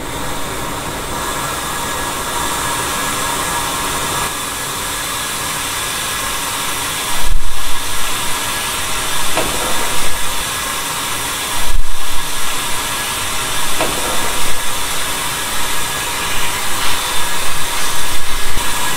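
Compressed air hissing steadily from a pressurised turbo intake tract under a boost leak test, the sign of a boost leak. Two loud thumps come about 7 and 12 seconds in, and the hiss flutters unevenly near the end.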